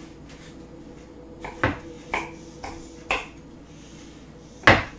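Kitchen knife rough-chopping water chestnuts on a cutting board: about five separate, unevenly spaced knocks, the loudest near the end.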